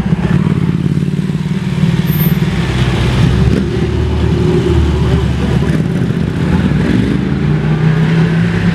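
Ferrari 488 Pista's twin-turbo V8 running at low revs as the car pulls slowly away, a steady low engine note with a slight rise in pitch near the end.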